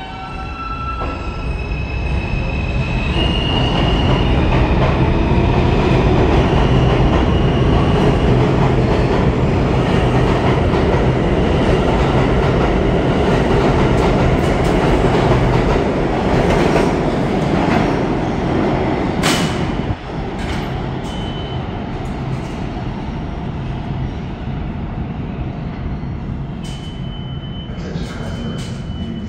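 R160 subway train pulling out of the station: a rising, stepped whine from its propulsion as it starts to accelerate, then a loud rumble of the cars running past that eases off about twenty seconds in. A thin, high wheel squeal is heard near the end.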